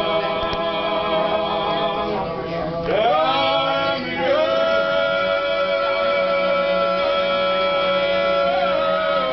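Men singing a Georgian table song in unaccompanied polyphony, several voices holding long chords over a low drone. The voices slide up together into a new chord about three seconds in, and again a second later.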